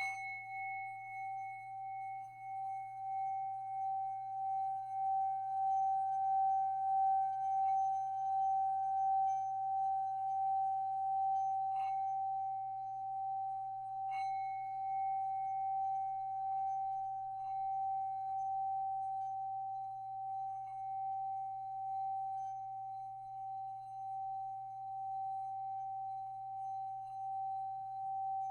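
Singing bowl ringing with one steady, wavering tone that swells and is kept going rather than fading, with a couple of light clicks from the mallet about halfway through.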